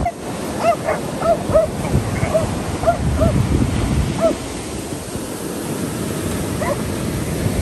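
Surf breaking on the beach, with wind on the microphone. Over it a dog barks in a quick run of short barks, about three a second, for the first few seconds, then once more near the end.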